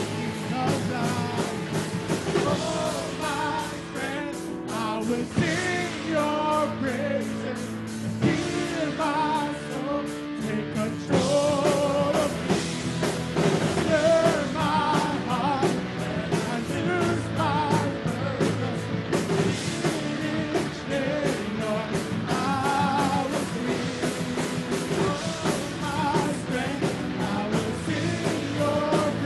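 Live band playing a Christian worship song: a man singing lead over electric bass, electric guitars and keyboard, with a steady beat.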